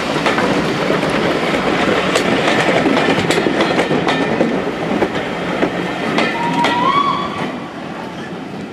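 Railway passenger coaches rolling past at close range, wheels clicking over the rail joints, with a brief high squeal near the end. The sound fades as the last coach goes by, about seven seconds in.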